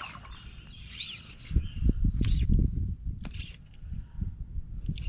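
Insects droning steadily in one high, thin tone. Low rumbling thumps come in from about a second and a half in, with a few short sharp swishes among them.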